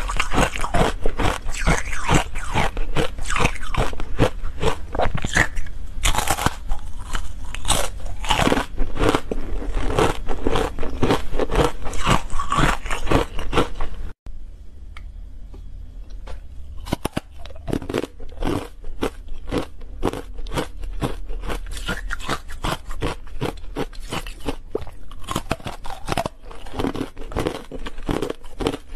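Ice bars coated in matcha powder being bitten and chewed, a dense run of loud crunching and crackling. A little before halfway it breaks off, and quieter, sparser crunches and clicks follow.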